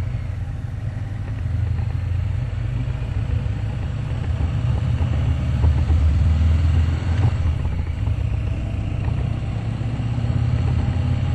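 Harley-Davidson Sport Glide's Milwaukee-Eight 107 V-twin running under way at riding speed, a steady low exhaust note that gets a little louder about halfway through.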